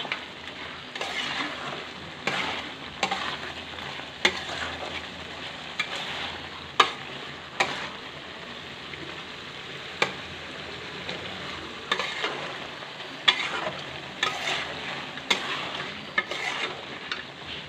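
Chicken curry sizzling in a metal pot as it is stirred with a metal spatula, the spatula knocking and scraping against the pot every second or two.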